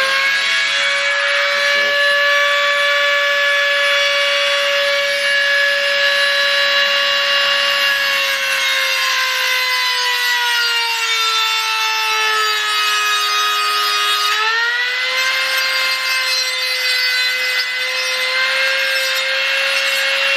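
Handheld high-speed rotary tool (Dremel type) whining at speed while grinding down the protruding pins inside an e-bike wheel rim, so they won't puncture the inner tube. Its pitch sags for several seconds as it is pressed into the metal, then jumps back up when the load comes off.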